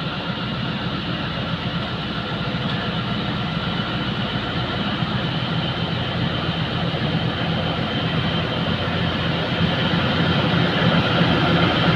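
Diesel engine of a Pakistan Railways ZCU-20 diesel-electric locomotive running under power as it pulls a passenger train out of the station, growing steadily louder as it approaches.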